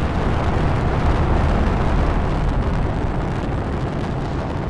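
Rocket launch roar: a loud, steady, deep rumble that slowly grows quieter.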